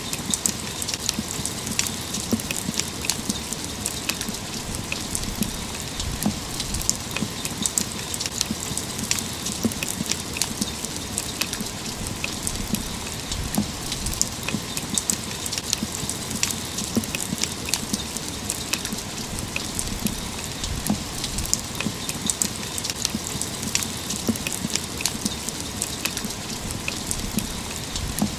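Steady rainfall: an even hiss with many sharp individual drop hits.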